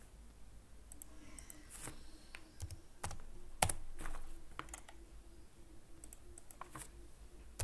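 Faint, irregular clicks of a computer keyboard and mouse as dimension values are typed into a CAD sketch. The clicks come one at a time, a handful in all, the loudest about three and a half seconds in.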